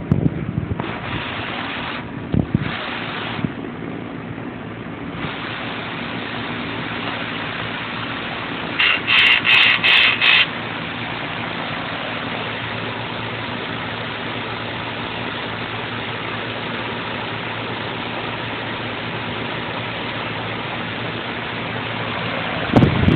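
Air conditioner running with a steady hum and hiss that grows louder about five seconds in. Around nine seconds in comes a loud burst of about four quick high-pitched pulses lasting a second and a half: the unit's abnormal noise.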